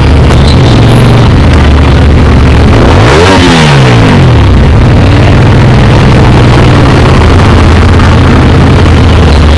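Motorcycle engine running under way, with wind rushing over the camera mic; about three seconds in, the engine note rises and falls once.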